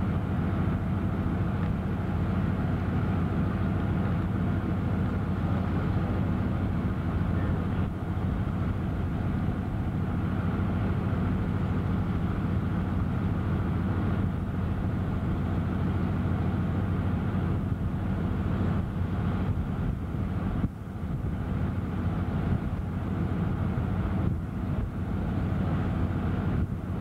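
A steady low engine drone, dipping briefly twice in the last part.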